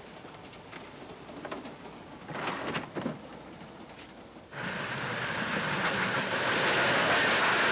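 A few soft knocks, then from about four and a half seconds in the loud, even rush of a steam train running at speed, growing louder.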